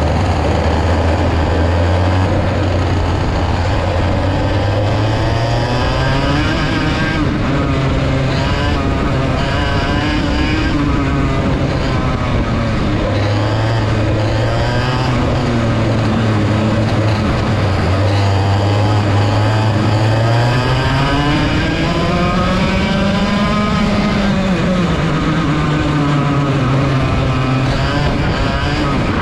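Racing kart's Vortex VLR 100cc two-stroke engine at full race pace, its revs climbing and dropping again and again as it accelerates and brakes through corners, with a long climb about twenty seconds in that falls away near the end. Other karts' engines run close around it.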